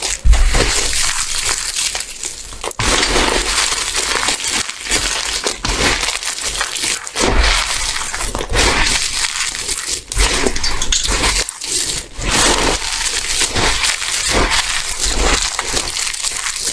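Dry, crunchy soap being crushed and crumbled by hand: a dense, continuous crackle of many small snaps and crunches.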